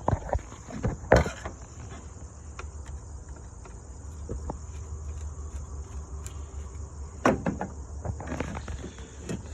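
Clicks and knocks of plastic intake parts being handled as an aftermarket air filter is worked off a truck's air intake, loudest about a second in and again around seven to eight seconds. Crickets chirp steadily behind.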